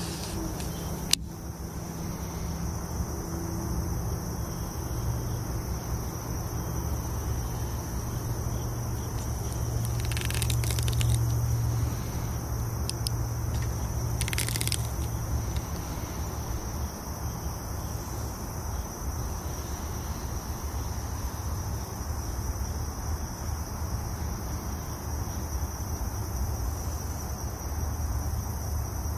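Insects trilling steadily at a high, even pitch, cricket-like, with a low background rumble. A sharp click comes about a second in, and two brief rustling scrapes come near the middle.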